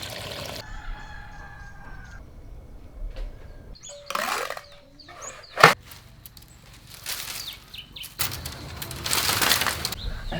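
Chickens: a rooster crows near the start, with wing flapping and scuffling bursts through the rest. A single sharp crack about five and a half seconds in is the loudest sound.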